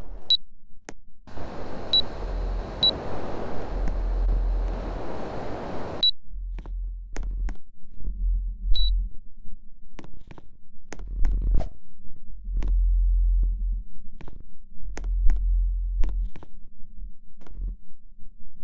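Air conditioner unit beeping short, high single beeps, about five in the first nine seconds, with a rushing hiss for a few seconds early on. Many sharp clicks and intermittent low rumbling follow.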